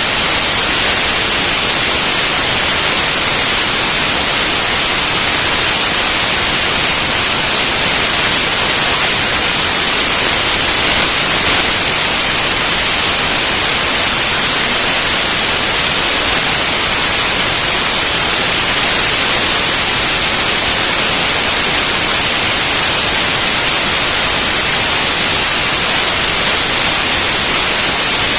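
Steady, loud hiss, even throughout and strongest in the high pitches, with no distinct drops, knocks or changes.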